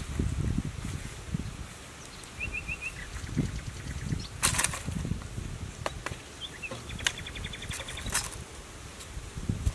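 A bundle of dry grass swishing and rustling as it is handled, with two sharp swishes about halfway through and again near the end, over a low rumble. Short rapid bird chirps come in twice.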